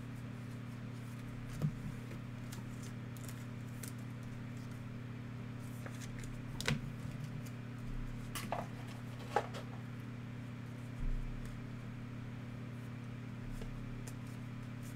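Panini NBA Hoops trading cards being handled: a few light clicks and short rustles as cards are slid through the hands and set down on the table, over a steady low hum.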